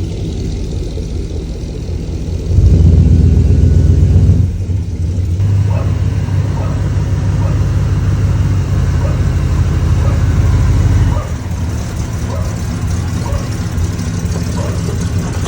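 Car engine running, revving up about two and a half seconds in and settling back to a steadier run about two seconds later, then dropping in level near the end.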